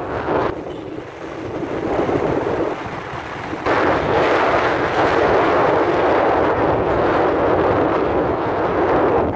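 Wind rushing over the microphone of a moving motorbike, with the ride's road noise under it. It eases for a few seconds near the start, then comes back strongly and suddenly.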